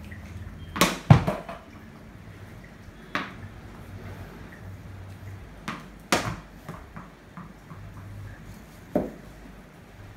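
Cricket ball bouncing on a hard tiled floor and knocked by a cricket bat: a few sharp knocks, the loudest cluster about a second in, then single knocks spread through the rest, ringing a little in the room.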